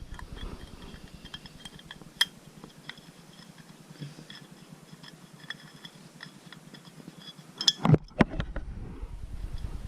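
Light metallic clicks and taps of hand tools and parts being handled on a motorcycle, with a few louder knocks about eight seconds in.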